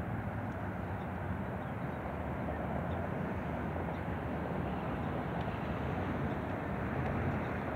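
Steady low drone of a distant tugboat's diesel engines as it pushes barges.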